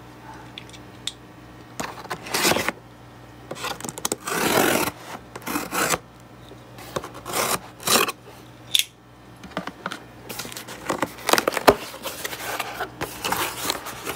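Scissor blades slitting the packing tape along a cardboard shipping box in several long, scraping strokes. Near the end come rustling and scraping as the box's flaps are pulled open.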